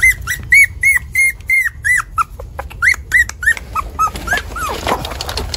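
Young puppy whimpering in a quick run of short, high cries, about three a second, dropping lower in pitch in the second half: the distress cries of a nursing pup picked up and taken from its nest.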